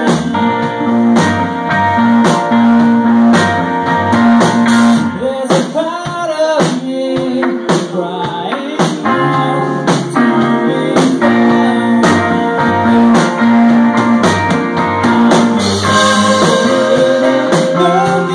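Live band playing a song: electric guitar and bass with a voice singing over a beat of sharp percussive hits.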